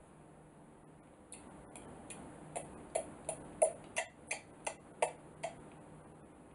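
A person gulping hot chocolate from a mug: a run of quick swallowing clicks, about three a second, starting about a second in and stopping after about five seconds, over a faint steady hum.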